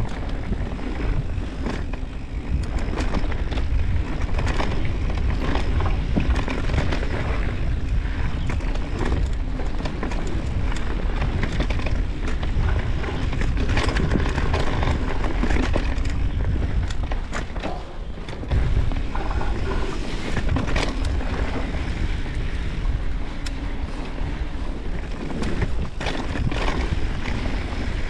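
Mountain bike riding a dirt trail: wind buffeting the microphone, with tyres rolling over dirt and rocks and frequent clicks and rattles from the bike, and a brief lull about two-thirds of the way in.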